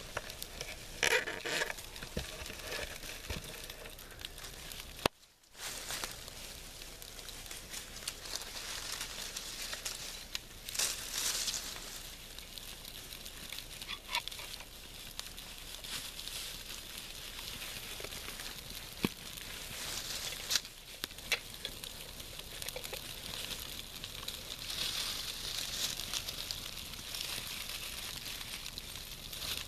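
Small wood campfire burning, a steady hiss with scattered sharp crackles and pops. A few rustles and knocks come in the first seconds, before a short break about five seconds in.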